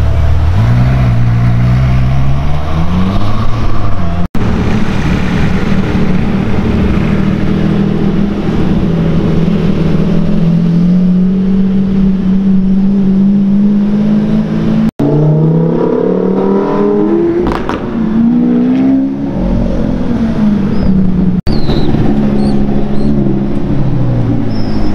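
Supercar engines accelerating in a run of short cuts, each rising in pitch as the car pulls away, one of them a Lamborghini Diablo's V12 held in a long steady climb; near the end the pitch falls as a car eases off.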